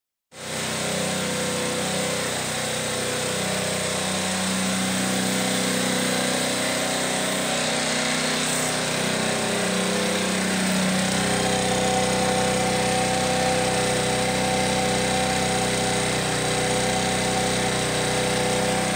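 Scooter engine of a homemade trike running steadily at idle, its note rising slightly about halfway through.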